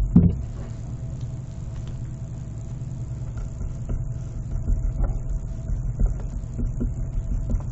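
Steady low background rumble with a faint steady hum and a few small clicks.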